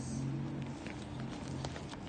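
Clear plastic packaging bag crinkling and rustling as it is handled, a scattering of short crackles over a steady low hum.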